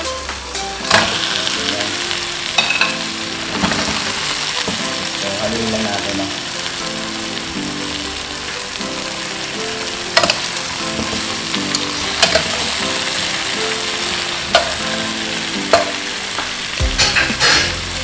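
Onion, garlic, ginger and tomato sizzling in a cooking pot as pieces of fried tilapia are laid in, with a few sharp clinks and knocks along the way.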